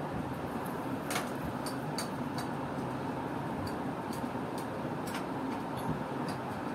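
Steady rushing background noise with scattered small ticks and pops from the hot, freshly cooked fish filling in the steel pan.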